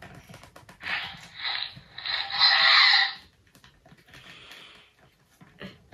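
A child making breathy, hissing roar noises with his mouth for a toy sea monster, in three bursts of about a second each; the middle one is the loudest.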